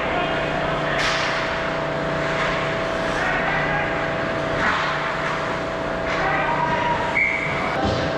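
Ice hockey rink sound: a steady hum underneath, with skates scraping on the ice in short hissy bursts and distant players' shouts.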